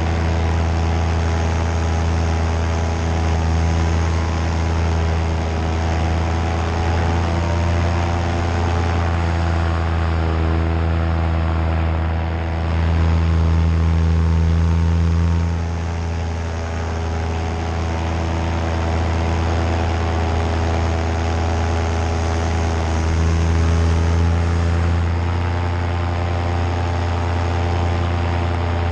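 Nitro 200 paramotor's two-stroke engine and propeller running steadily in flight, a continuous drone with small throttle changes, louder for a couple of seconds about halfway through and again near the end.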